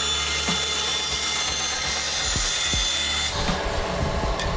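Bandsaw cutting through a wooden block: a dense, high hiss from the blade in the wood over the saw's steady motor hum. The cut ends a little past three seconds in, and the saw runs on without load.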